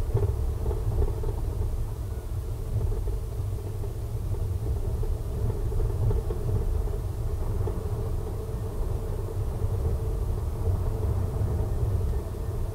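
Car driving at road speed: a steady low rumble of tyre and engine noise.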